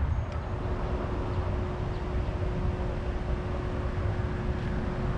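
Steady low outdoor rumble with no speech. A faint, steady hum comes in just after the start.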